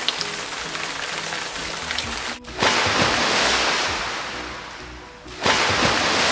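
A rushing-water sound effect, like waves washing in, played twice over background music. Each swell starts suddenly and fades over about two and a half seconds, the first about two and a half seconds in and the second about five and a half seconds in. It stands in for the sound of the fish.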